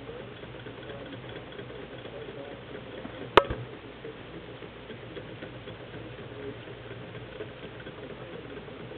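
Small homemade Stirling hot-air engine, no-bearing and heated by Sterno, running with a light, rapid ticking. One sharp click sounds about three and a half seconds in.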